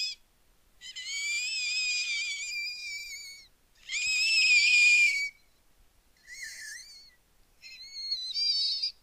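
A person's voice making high-pitched, wavering squealing cries to imitate a crying creature, sounding more like a pig. There are four cries with short gaps between them: a long first one, a second that is the loudest, and two shorter, fainter ones near the end.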